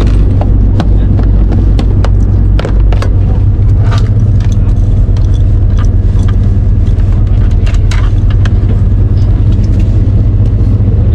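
Fishing boat's inboard engine running steadily, a loud deep hum, with scattered light clicks and knocks from fishing gear being handled on the deck.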